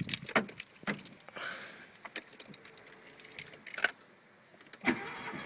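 Keys jangling and a series of sharp clicks, as at the ignition, then near the end the Mk2 Golf GTI's 8-valve four-cylinder engine starts and settles into a steady run.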